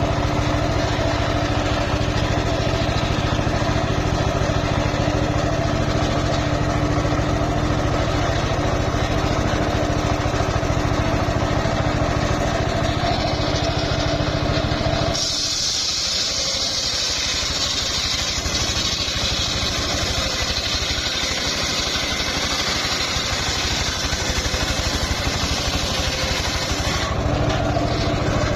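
Engine-driven homemade circular sawmill (serkel) running steadily; about halfway through, the blade cuts into old, somewhat hard mahogany for about twelve seconds with a loud high hiss while the engine's hum drops, then it runs free again near the end.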